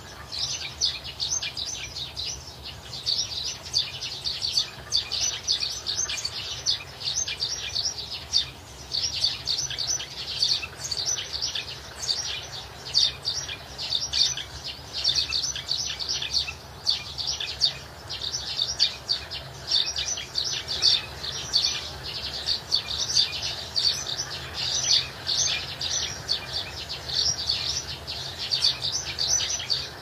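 A flock of young chicks peeping, a dense unbroken chorus of short high calls over a faint steady low hum.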